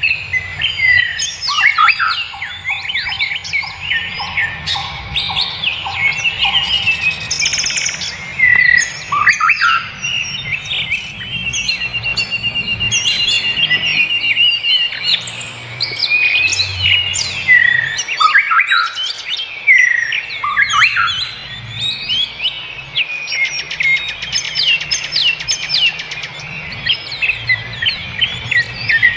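Several wild birds singing and calling at once, a dense mix of overlapping chirps, whistled notes and rapid trills.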